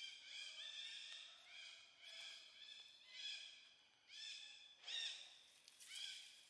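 Faint, high animal calls: short, arching cries, each with several overtones, repeating over and over and loudest about five seconds in.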